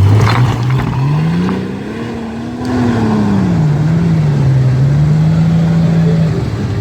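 Jeep Comanche pickup's engine speeding up for about two and a half seconds, dropping back, then holding a steady speed before easing off near the end.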